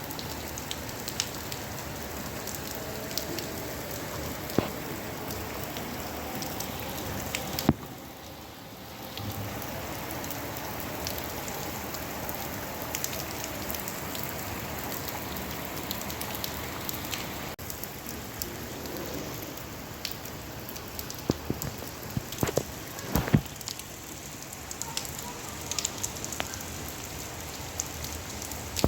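Steady rain falling, an even hiss with many separate drops ticking close by. The rain dips briefly about a third of the way in, and near the end a run of louder drops strikes.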